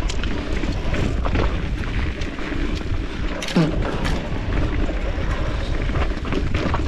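Riding an electric mountain bike over rough, rocky trail: wind rumbling on the camera's microphone, with the bike rattling and knocking over the bumps, and a harder knock a little past halfway.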